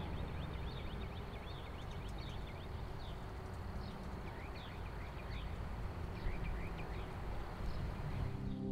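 Outdoor ambience of many birds chirping in short, quick falling calls, over a steady low background rumble.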